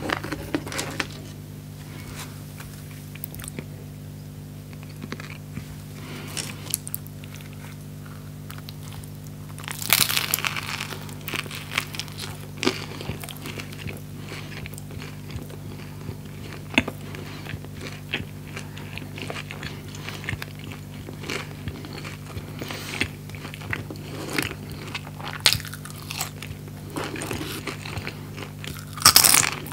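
Close-miked eating: a loud crunchy bite into a grilled, pressed pita sandwich about ten seconds in, followed by chewing with small wet mouth clicks, and another crunchy bite near the end. A steady low hum runs underneath.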